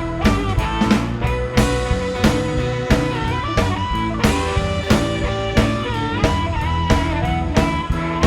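Background music: a rock or blues track with a steady drum-kit beat and bending electric guitar lines.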